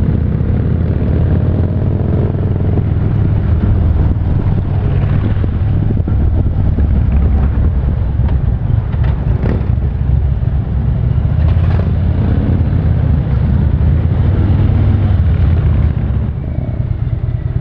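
Harley-Davidson touring motorcycle's V-twin engine running under way, a steady deep drone under a rushing noise of wind and road. It eases off near the end as the bike slows.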